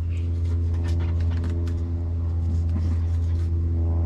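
Steady low mechanical hum of a running motor, with a stack of steady tones above it and light clicks and scrapes over it.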